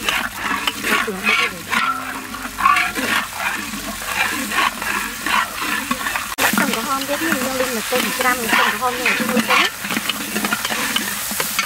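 Oil sizzling in a wok while a metal spatula scrapes and stirs around the pan in repeated strokes, frying a paste and then chopped garlic and shallots.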